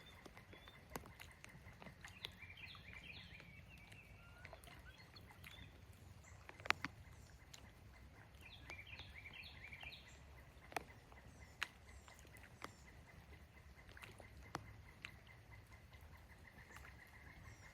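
Faint outdoor ambience: a bird gives two short bursts of quick chirping notes, while single raindrops tap now and then over a low steady rumble.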